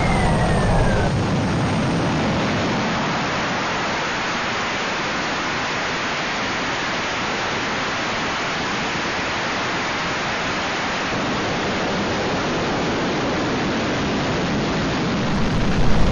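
Dassault Rafale's twin M88 jet engines running at high power on a carrier catapult: a steady, loud rushing noise. A falling whine dies away about a second in.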